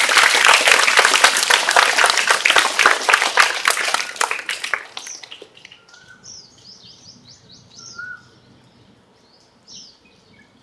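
Audience clapping, fading out about five seconds in, followed by birds chirping in short high calls.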